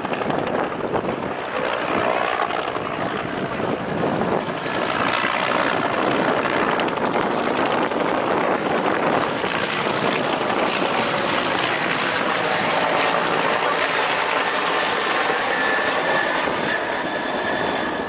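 Helicopter flying past, with loud, steady rotor and engine noise.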